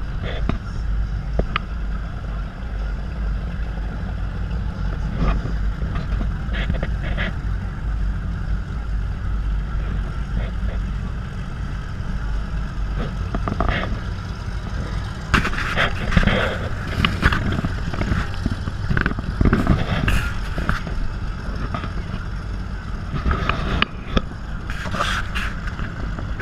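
Steady low rumble of a motorboat cruising slowly, with wind on the microphone. From about 15 seconds in, people's voices and shouts come through in short bursts.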